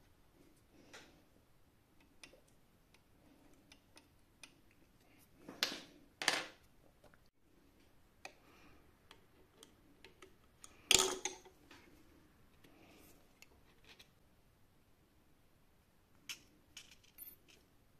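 Scattered metallic clicks and clinks from hands and tools working on a Textima Altin industrial sewing machine's needle and hook area. There are two louder clinks about six seconds in and the loudest knock near the middle.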